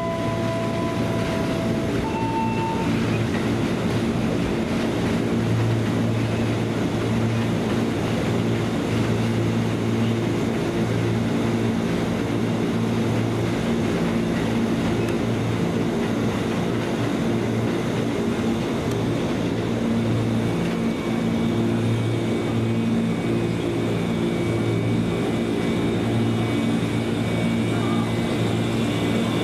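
Former JR East 205-series electric commuter train standing at the platform, its onboard equipment humming steadily and swelling a little now and then. A short chime of a few held notes sounds in the first couple of seconds.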